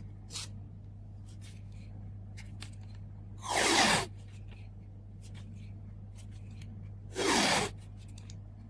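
Adhesive tape being pulled off a roll in two short rips, about three and a half seconds apart, with faint handling clicks between them over a low steady hum.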